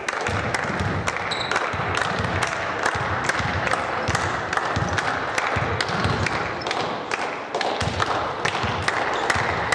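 Volleyballs being struck and bouncing on a sports-hall floor: irregular sharp smacks, several a second, over steady hall noise.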